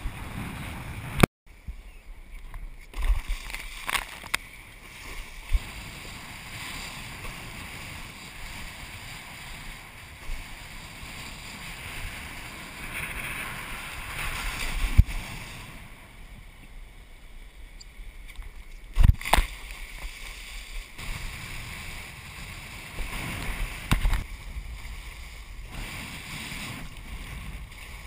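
Rushing water and wind noise on an action camera riding with a kiteboard as it planes across choppy water, with occasional sharp knocks as the board hits chop. The sound cuts out briefly about a second in.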